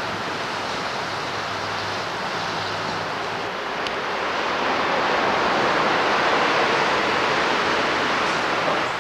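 Steady rushing outdoor background noise with no distinct events, growing somewhat louder about four seconds in, with a faint click at that point.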